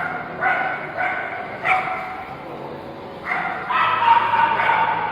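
Dogs barking and yipping: a string of short barks, then one longer drawn-out call near the end.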